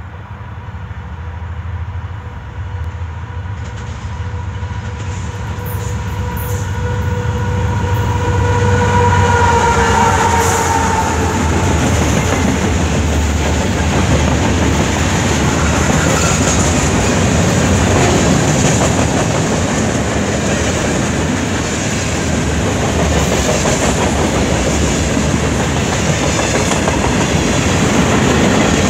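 Canadian Pacific freight train approaching and passing close by, growing louder over the first several seconds. The lead locomotives give a steady tone that drops slightly in pitch as they pass about ten seconds in, and after that the wheels rumble and clatter over the rail joints as boxcars and covered hopper cars roll by.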